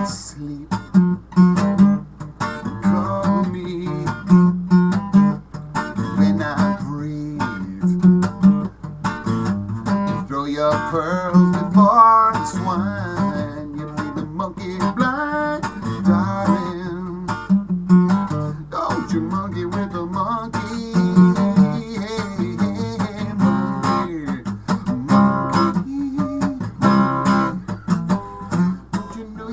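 Acoustic guitar strummed and picked in a steady rhythm.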